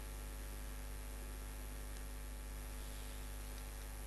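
Steady electrical mains hum with a faint hiss, the background noise of the recording setup.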